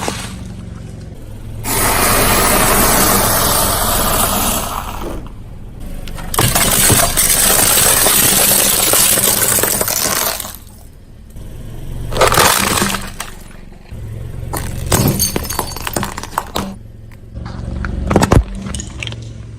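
Dry instant noodle blocks crunching and crackling under a car tyre in several long spells and shorter sharp bursts, over the car engine's low steady running.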